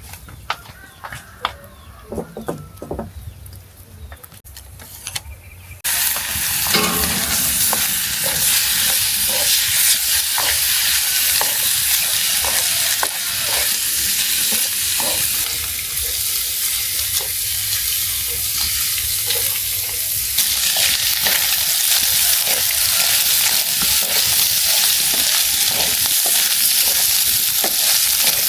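Food hitting hot oil about six seconds in and then sizzling loudly as it fries, with short knocks of a utensil stirring in the pan.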